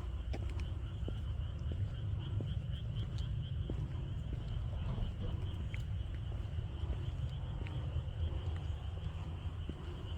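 Crickets or similar insects chirping in a steady, fast-pulsing trill, with a continuous low rumble underneath and a few faint clicks.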